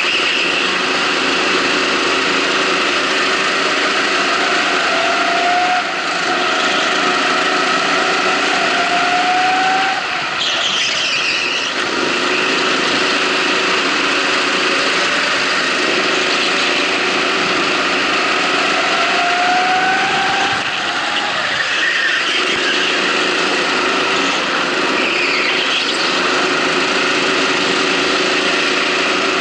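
Rental go-kart engine at racing speed, heard on board: its pitch rises over several seconds on the straights and drops back as the driver lifts for the corners. Brief tyre squeal in the turns, about ten seconds in and again near the end.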